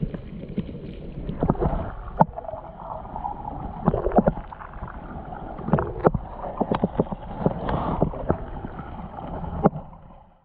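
Water splashing and sloshing, with a scatter of irregular knocks and clicks; the sound cuts off suddenly near the end.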